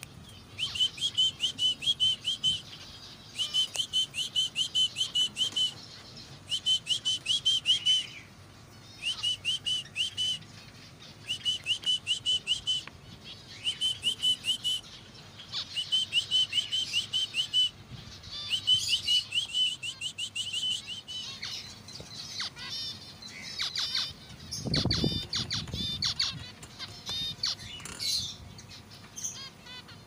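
Zebra finches calling: quick strings of short nasal beeping notes, about eight to ten a second, in bursts of a second or two with short pauses. From about 21 s the notes become more varied and overlap, and a low thump comes at about 25 s.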